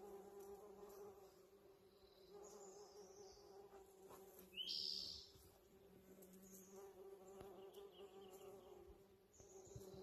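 Bees buzzing around the flowers of a blooming holly tree: a faint, steady hum. A brief high chirp comes about halfway through.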